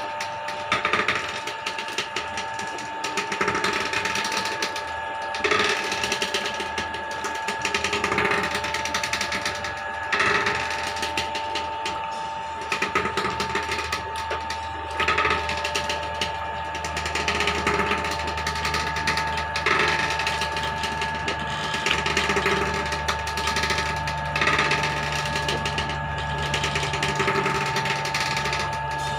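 Motorised wooden oil ghani running, its wooden pestle turning in the mortar and grinding oilseeds, over a steady mechanical whine. A rhythmic grinding pulse comes about every two seconds, and a deeper hum joins about eight seconds in.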